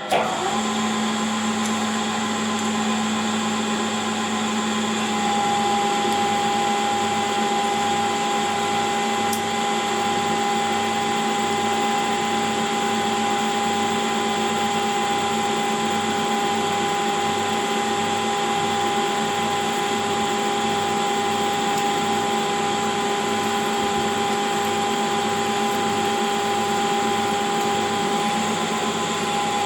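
Metal lathe running at 575 RPM and taking a turning cut, 1 mm deep, on a bolt blank. It makes a steady machine hum with a steady whine that comes in about five seconds in, over a low beat about once a second.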